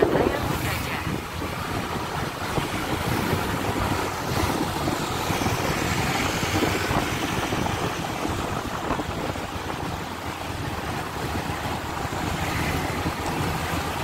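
Wind buffeting the microphone of a moving motor scooter, a steady rush with the motorcycle traffic running underneath.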